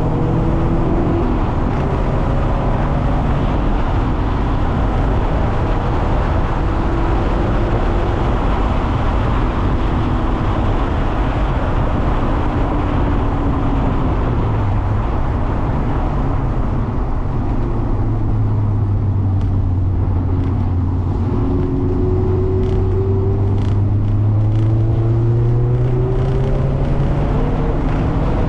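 Mazda MX-5 (ND) four-cylinder engine under way on a wet track, its pitch rising and falling with throttle and gear changes, over a steady hiss of tyre spray and road noise. In the second half the engine holds a long, slowly climbing pull, with a few light ticks scattered through it.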